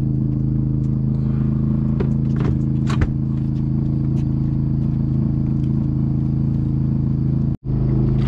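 An engine on the boat runs with a steady, even hum, with a few knocks and clatters about two and three seconds in. The sound cuts out for an instant near the end.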